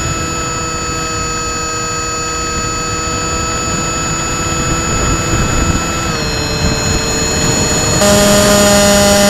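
Electric motor and APC 6x4E propeller of an RC FPV wing whining steadily, with wind rush on the onboard camera. The pitch steps slightly lower about six seconds in, then the sound gets louder with a new set of tones about eight seconds in.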